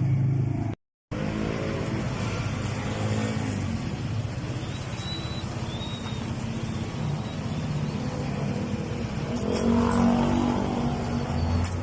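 A Yamaha Mio i125's single-cylinder four-stroke engine running, briefly louder about ten seconds in. Its knocking and unstable idle come from a camshaft scored at the decompression lobe through lack of lubrication.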